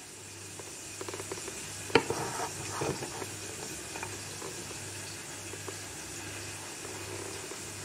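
Metal spoon scraping and clinking against a small saucepan as fried lardons are scooped out and dropped onto soup, with one sharp clink about two seconds in. A faint sizzle from the hot pan runs underneath.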